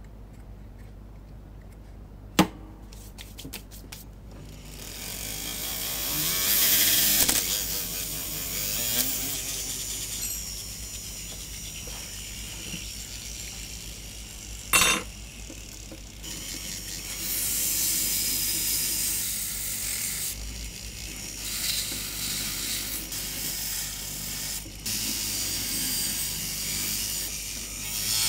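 Jeweller's tool working a small gold casting: a sharp click and a few quick ticks, then a long stretch of rough, hissy grinding or scraping on the metal that swells and dips. Another sharp click comes about halfway through.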